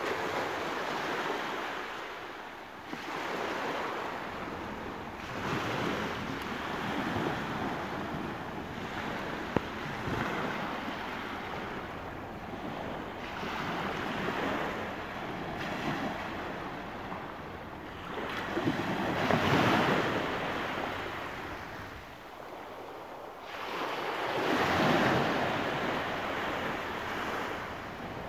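Small sea waves breaking and washing up a sandy beach, the hiss of surf swelling and fading in surges every few seconds, loudest about two-thirds of the way in and again near the end.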